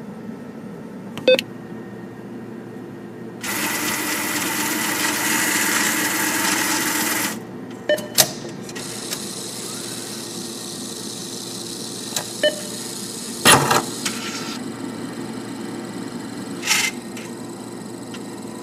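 ATM cash-dispensing sound: a steady mechanical whir with several sharp clicks and a loud whirring burst for about four seconds, a few seconds in. This is a recorded effect that the ATM plays through its speaker to imitate notes being counted out.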